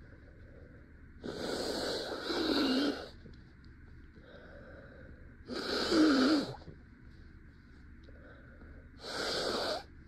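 A woman blowing her congested nose into a tissue three times: a long two-part blow about a second in, a shorter one around six seconds, and a short one near the end, the first two with a honking voiced edge.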